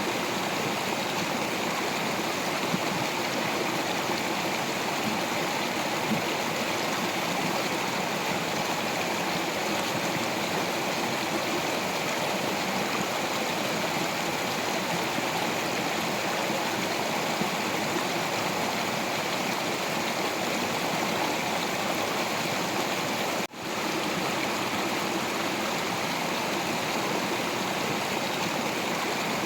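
Stream of water flowing steadily over rocks, a continuous even rushing, broken by a brief dropout about three-quarters of the way through.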